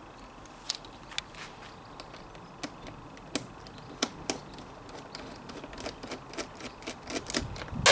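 Scattered light clicks and taps of hands and a small tool working the plastic access cover on the side of a Parkside PGI 1200 B2 inverter generator, undoing it to take the plate off, with a louder knock at the very end.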